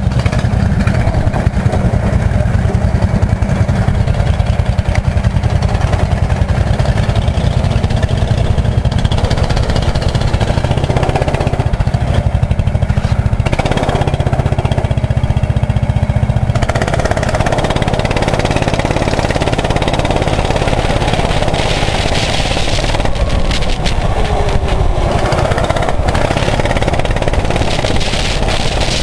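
Rental go-kart engine running under the driver, heard from the seat: steady at first while the kart rolls out of the pits, then louder and higher from about halfway through as it speeds up on the track.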